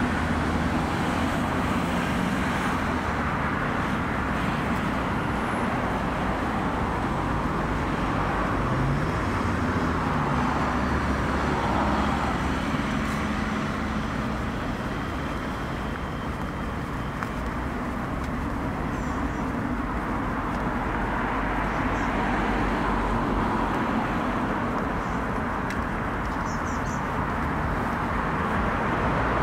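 Road traffic on a busy road: cars and vans driving past, a steady mix of tyre and engine noise that swells and fades as each vehicle goes by.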